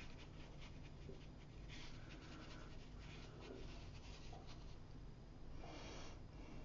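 Faint, scratchy swishing of a round watercolour brush dabbing and sweeping a blue wash across textured watercolour paper in irregular strokes. The strokes are louder about two seconds in and again near the end.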